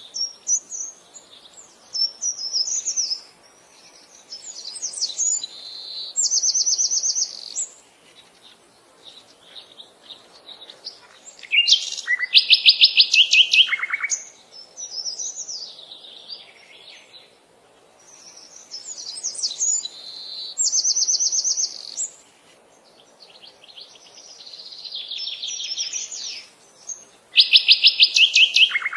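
A bird singing a song of high chirping notes that ends in a fast trill. The phrase repeats about every seven seconds.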